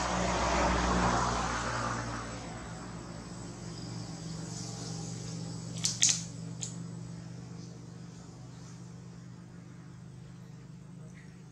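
A passing vehicle's engine noise, loudest about a second in and fading over the next few seconds, over a steady low hum. About six seconds in, a few sharp clicks.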